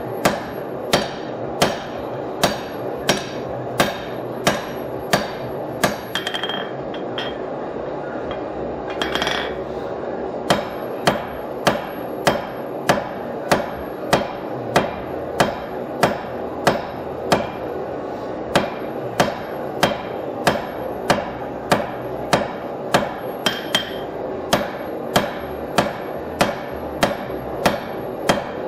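Hand hammer striking a red-hot steel bar on an anvil while forging a knife blank, in a steady rhythm of about three blows every two seconds. The blows break off for about four seconds partway through, then resume at the same pace.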